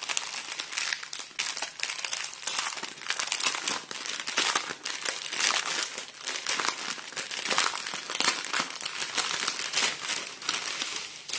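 Strip of small plastic zip bags of diamond painting drills crinkling as it is unfolded and turned over in the hands: a dense, irregular crackle with no let-up.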